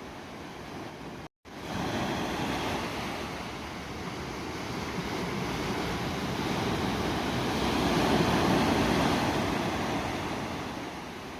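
Ocean surf: the rushing noise of a wave washing in, building to its loudest about eight seconds in and then falling away. A brief total dropout about a second in breaks the sound.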